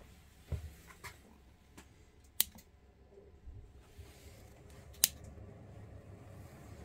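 Clicks of small fittings being handled and set up on a post: a few faint clicks, then two sharp, louder clicks about two and a half seconds apart.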